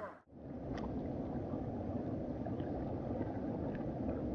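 Steady rushing of flowing river water, low and even, starting after a brief drop-out just after the start.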